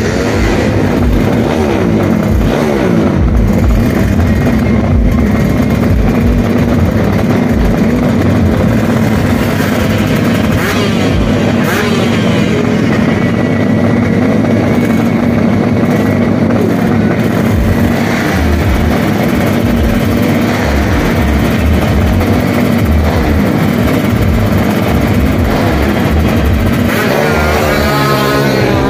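Drag-racing motorcycle engines revving at the start line, running continuously and loudly, with revs rising sharply near the end.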